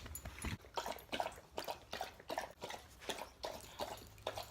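A dog licking close by: a quick, uneven run of wet smacking sounds, about three or four a second.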